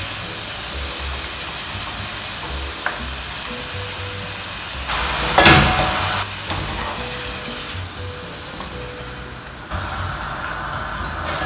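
Potato chips deep-frying in a pan of hot oil, a steady sizzle, with background music. About five seconds in, a brief louder rattle and clink as part-fried chips are tipped from a wire skimmer into a metal pot.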